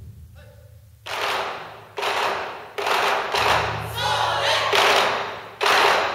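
Ensemble of taiko barrel drums struck together with sticks: after a short hush with a brief shout, a string of heavy unison hits begins about a second in, roughly one a second, each ringing on and fading. Players' shouts rise over the strikes near the middle.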